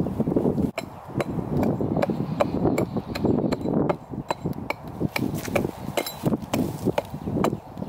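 Hatchet blade striking a small tree trunk again and again, chopping it down, about two to three blows a second, starting about a second in.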